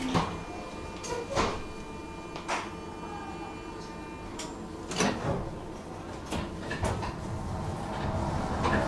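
Standing tram with a steady low electrical hum and thin steady tones, broken by scattered sharp knocks and clicks every second or so. Near the end the level rises as the tram's running noise builds.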